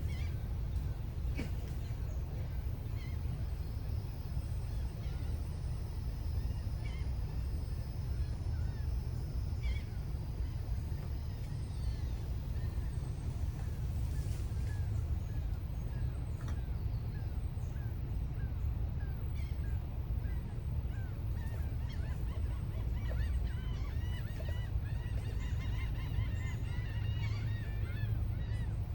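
A flock of birds giving short, repeated honking calls, scattered at first and thickening into a dense chorus over the last few seconds, over a steady low rumble.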